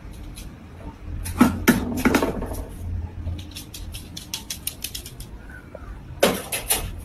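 A small dog's claws ticking quickly on a hard floor as it trots about, over a low steady hum. A couple of louder rustling knocks come a second or so in and again near the end.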